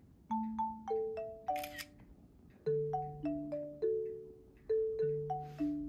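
Light background music: a bouncy tune of short chiming notes over held bass notes, with a brief hissing burst about one and a half seconds in.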